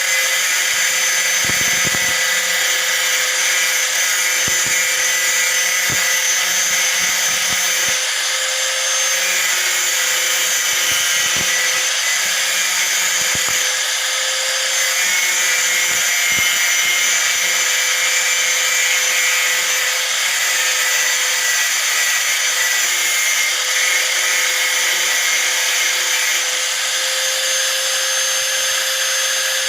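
Hand-held angle grinder running steadily with a constant high whine, grinding down a rusty iron nail.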